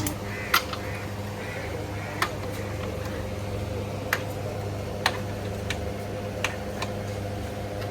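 Short sharp clicks and knocks, about seven of them at irregular intervals, over a steady low hum, typical of hand tools being set down and tapped on metal during work on a car.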